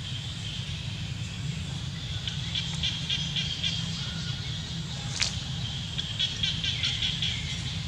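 Outdoor ambience: small birds chirping in quick runs of high notes over a steady low rumble, with one sharp click about five seconds in.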